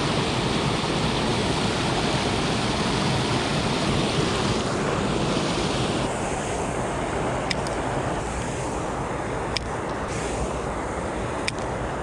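River water rushing steadily, its hiss easing a little about six seconds in, with a few faint sharp clicks in the second half.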